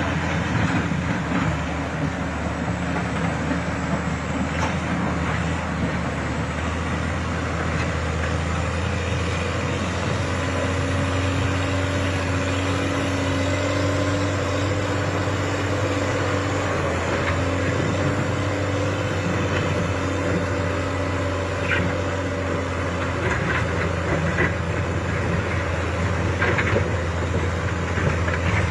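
Heavy diesel machine engine running steadily, a constant low drone, with a higher steady tone joining in from about ten seconds in until just past twenty.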